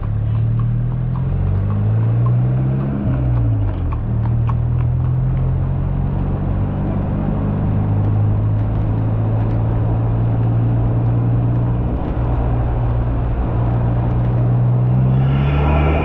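Ford Fiesta ST180's turbocharged 1.6-litre four-cylinder engine, with a hybrid turbo, running under way. The engine note climbs for about three seconds and drops sharply as the throttle comes off, holds steady for most of the stretch, then climbs again near the end.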